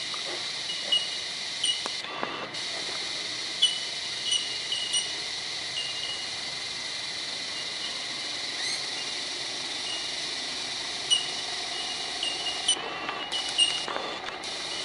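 Steady high-pitched insect buzzing in bushland, with short high bird chirps every second or so and one rising call about nine seconds in. The buzzing drops out briefly a few times.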